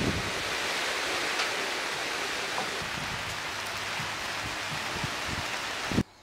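Steady rain falling, an even hiss with a few low thuds, cutting off suddenly near the end.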